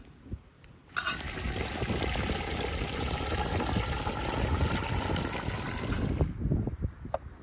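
Water poured from a metal can into a samovar's tank, splashing around its central chimney pipe. The pour starts suddenly about a second in and stops abruptly about five seconds later.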